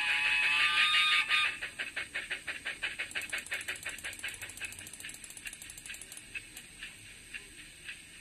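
Model Baldwin 10-12-D steam locomotive's DCC sound decoder playing a steam whistle that cuts off about a second in. A run of evenly spaced exhaust chuffs follows, about five a second, growing fainter and sparser toward the end.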